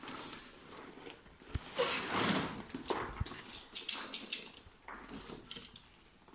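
Large cardboard box being tipped over and handled while its tape seal is slit with a box cutter: irregular scraping and rustling of cardboard, with a couple of sharp knocks.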